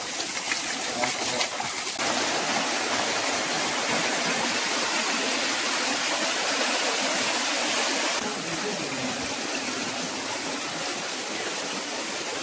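Stream water falling and splashing over rocks. A small waterfall comes in louder from about two seconds in, and a softer flowing stream follows from about eight seconds.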